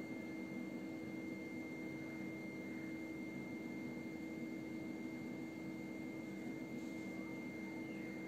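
Quiet steady background hum with a faint high whine above it and an even hiss; the knife drawn through the soft dough makes no distinct sound.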